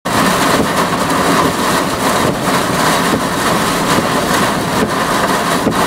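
Strong thunderstorm wind blowing hard: a loud, steady rushing noise with scattered sharp hits.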